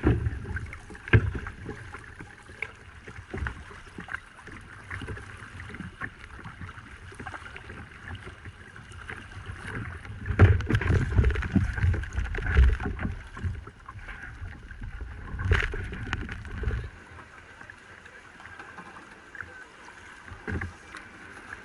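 Paddling on a river: water splashing and scattered paddle knocks, over a low wind rumble on the microphone that drops away about three-quarters of the way through.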